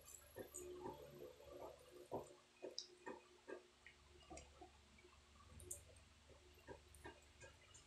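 Faint, irregular wet smacks and clicks of a person chewing rat meat with the mouth open and tearing it apart with the fingers.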